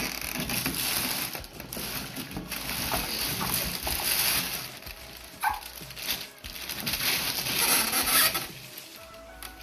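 A thin plastic cover bag crinkling and rustling as it is pulled off and handled, with the rustling easing off briefly partway through. Near the end the heater's body scrapes against the cardboard box as it is lifted out.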